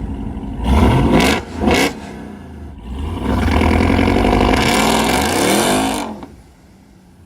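A 1,000-horsepower Ram TRX pickup's supercharged V8 is revved hard in two short blips. It then runs at full throttle for about three seconds, pitch rising, and drops off suddenly near the end.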